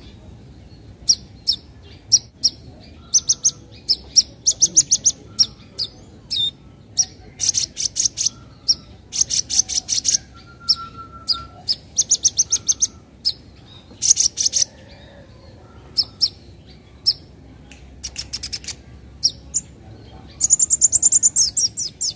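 Young kolibri ninja sunbird giving rapid, sharp, high-pitched chattering notes in short bursts, one every second or so, with a longer run of notes near the end.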